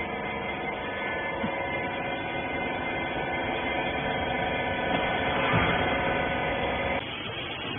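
Steady hum of the hydraulic rag baler's electric motor and pump running, with a set of steady tones over it. The tones cut out about seven seconds in.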